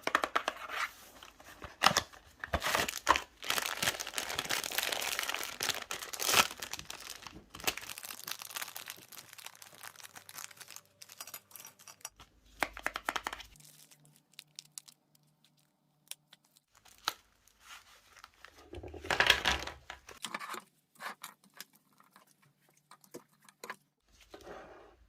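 Close-up crinkling and tearing of a plastic or paper food wrapper, dense crackling for the first several seconds, then scattered clicks and another short burst of rustling later on.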